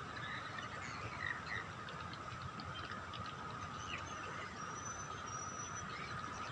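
Outdoor wildlife ambience: a steady high drone with scattered faint chirps, and a short thin whistle about five seconds in.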